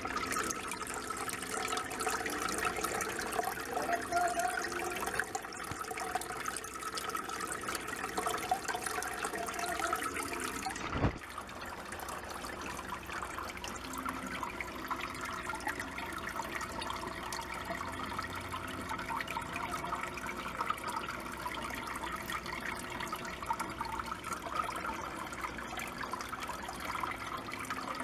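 Aquarium water pouring from a filter or pump return into the tank, a steady splashing trickle. One brief knock partway through, after which the water sound is slightly quieter.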